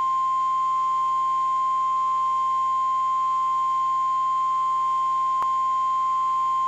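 NOAA Weather Radio 1050 Hz warning alarm tone: one steady, loud, high pure tone signalling that a warning message follows. A faint click sounds about five seconds in.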